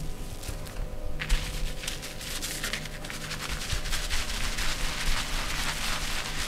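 Quick, dense patter of hands working over skin during a massage, rapid taps and rubbing strokes packed close together, starting about a second in.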